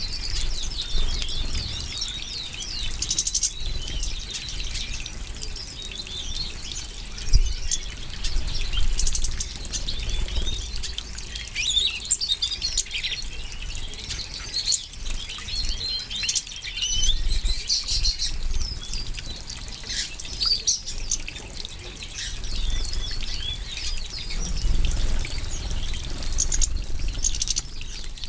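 A flock of European goldfinches of the large Mayor type twittering and chirping continually, many short quick calls overlapping.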